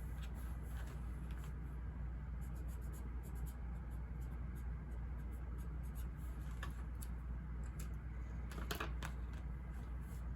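Steady low ambient white-noise rumble, with faint scattered clicks and a short scratchy rustle near the end from small desk handling sounds.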